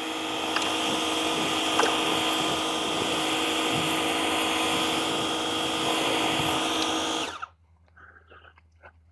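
DEWALT DCPW550 cordless 550-PSI power cleaner running on its high setting: a steady electric pump whine over the hiss of the water jet. It cuts off suddenly about seven seconds in as spraying stops, followed by a few faint clicks.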